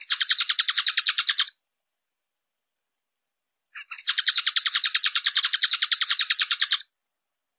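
Zebra finch calling in two runs of rapid, evenly repeated chirps, about ten or more a second: a short run of about a second and a half at the start, then a longer run of about three seconds beginning about four seconds in.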